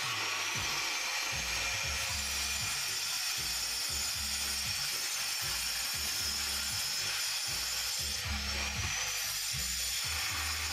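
Electric angle grinder running steadily against a slab of black stone, a continuous harsh grinding with its pitch rising briefly twice. Background music with a bassline plays beneath it.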